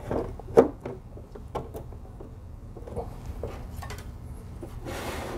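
Clear back panel of an LED display case sliding down into the grooves of its plastic corner posts: a few sharp clicks and knocks, the loudest about half a second in, then lighter taps and a short scraping rustle near the end.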